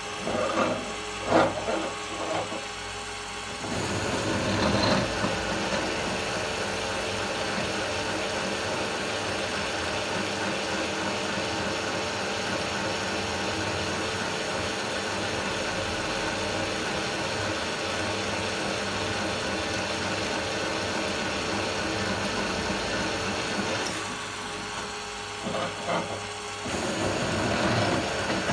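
Bosch bench drill press running steadily while drilling a metal plate. Uneven bursts of cutting noise come near the start and again near the end.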